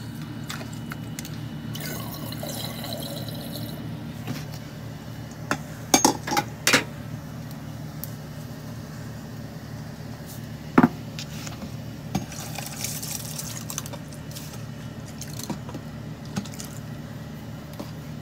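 Water sloshing and pouring as raw rice is rinsed in a plastic container and poured with its water into a rice cooker's pot, over a steady low hum. A few sharp knocks and clinks stand out, a cluster about a third of the way in and one more past the middle.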